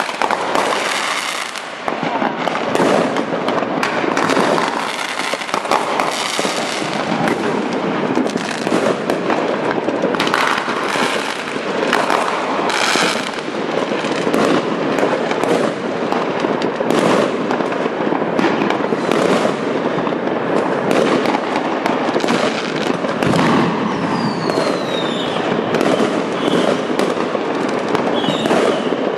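Many fireworks and firecrackers going off at once all around: continuous crackling and overlapping bangs, with a couple of falling whistles near the end.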